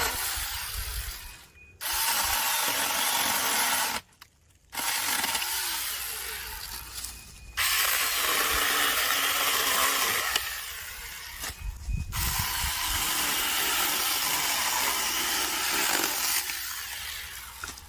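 Cordless 21-volt mini chainsaw running and cutting through tree wood, in several loud stretches that stop abruptly and start again.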